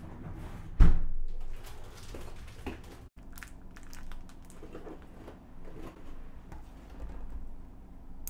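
A single sharp knock about a second in, then, after a break, light crinkling and rustling as a plastic pack of nameko mushrooms is handled and set down on a wooden board.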